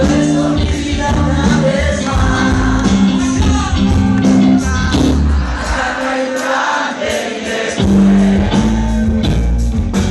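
Live band with electric guitar and drums playing while a woman sings into a microphone. The low end drops out for about two seconds past the middle, then the full band comes back in.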